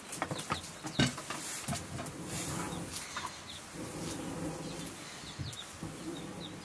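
Chickens clucking in the background, over soft slicing and clicking as leafy greens are cut against a hand-held blade, with a sharper knock about a second in.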